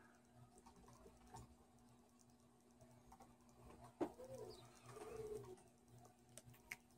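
Near silence: quiet room tone with a faint steady hum, a soft click about four seconds in, and a couple of faint low wavering tones after it.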